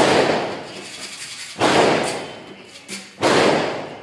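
Three gunshots about one and a half seconds apart, each a sharp crack with an echoing tail that dies away over about a second.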